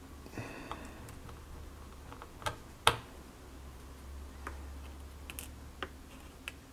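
Scattered small clicks and taps of a small screwdriver and fingers on a laptop's plastic display housing as the display's mounting screws are refitted, one sharp click about three seconds in being the loudest.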